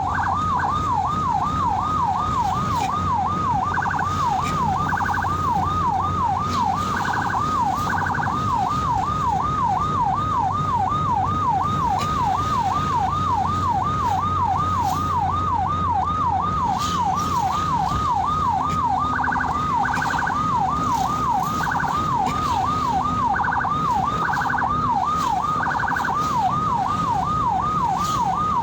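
Ambulance siren on a fast yelp, sweeping up and down in pitch about two to three times a second without a break. Short higher-pitched blips cut in a few times, over a low vehicle hum.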